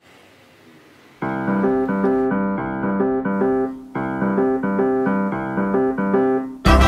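Background music: a piano-like keyboard plays a short phrase of held notes twice. Near the end a louder, fuller swing-style band with a beat comes in.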